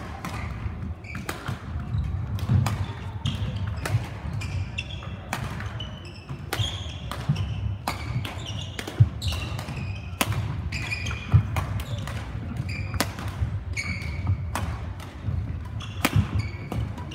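Badminton being played: irregular sharp cracks of rackets striking shuttlecocks, with short high squeaks of court shoes on the hall floor between them.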